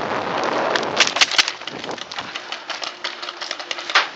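Paintball markers firing in quick, irregular pops, with a cluster about a second in and another sharp pop near the end.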